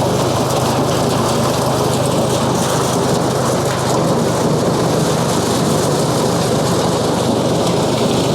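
A tractor-driven corn sheller at work: the tractor engine runs steadily with a low hum while the PTO-driven, pulley-belted machine strips dried corn kernels off the cobs, making a dense, even rattle that never lets up.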